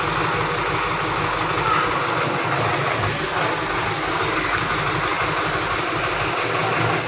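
Tractor-mounted crane's diesel engine running steadily, working the crane as it holds a concrete electric pole on its chain.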